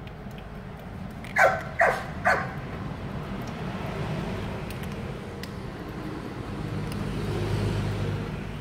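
A dog barks three times in quick succession about a second and a half in, over a cat chewing dry kibble with faint crunches. A low rumble swells near the end.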